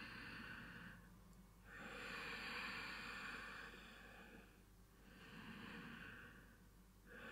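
Faint, slow, deep breathing of a person holding a yoga stretch: three long breaths, each swelling and fading over one to three seconds.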